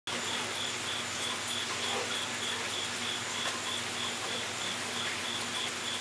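An insect chirping in an even rhythm, about three short high chirps a second, over a steady background hiss.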